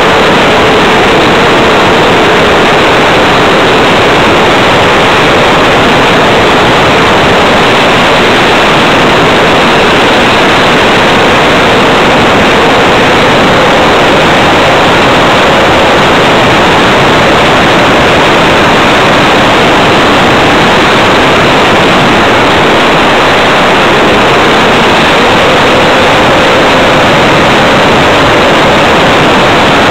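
Radio-controlled Tiger Moth model biplane in flight, heard through its onboard camera's microphone: a loud, steady rush of motor and airflow noise. A faint motor tone fades out a couple of seconds in and returns, rising, near the end.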